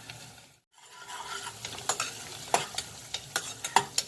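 Cumin, garlic, dried red chillies and curry leaves sizzling in hot oil and ghee for a tadka, with a spoon stirring and clicking against the pan. The sound cuts out briefly about half a second in, then the sizzle comes back with the clicks.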